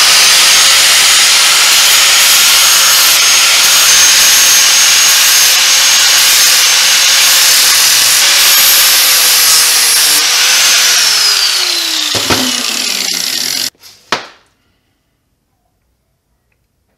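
Electric angle grinder with a flap disc grinding the steel edge of a lawn mower blade to sharpen it, its motor whining steadily. In the last few seconds the whine falls in pitch as the grinder winds down, and it cuts off a few seconds before the end, followed by a couple of short knocks.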